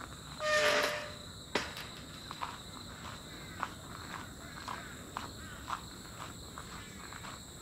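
Birds calling over a steady high drone of insects: one loud call about half a second in, then a run of short, quick chirps repeating roughly twice a second.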